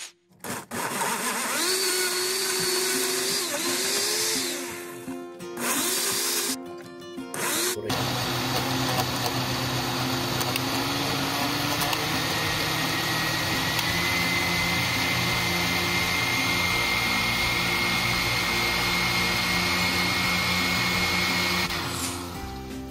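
Countertop blender with a glass jar blending a thick cilantro, avocado and mayonnaise sauce. The motor stops and restarts twice in the first eight seconds, then runs steadily, its whine stepping up slightly in pitch about halfway through, and cuts out near the end.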